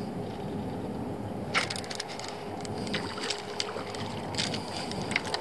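Steady low water-and-boat noise on a small fishing boat. From about a second and a half in, a string of light clicks and rattles comes as a hooked crappie is reeled up and swung aboard.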